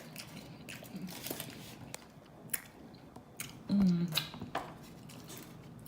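Close-up chewing and wet mouth sounds from eating a burrito, with scattered soft clicks and smacks. A short voiced hum about four seconds in is the loudest moment.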